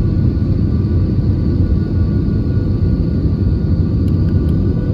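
Airbus A320 cabin noise heard from a window seat during the descent to land: a steady, deep rumble of engines and airflow, with a faint steady whine over it.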